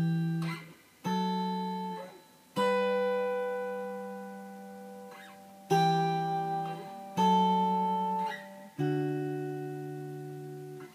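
Guitar chords plucked with the fingers, one at a time, each left to ring out and fade before the next: about six chords in a slow progression that starts on E minor.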